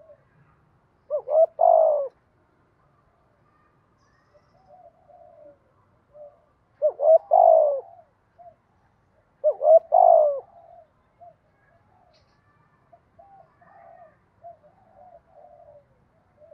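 Spotted dove cooing: three loud phrases of several quick coo notes, each lasting about a second, with softer short coos in the gaps between them.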